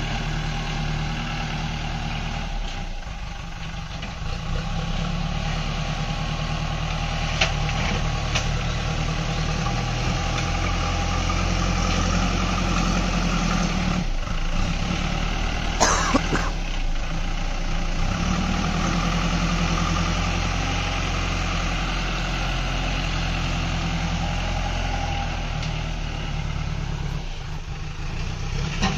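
JCB backhoe loader's diesel engine running steadily while the front loader bucket scoops and carries soil, with a sharp knock about halfway through.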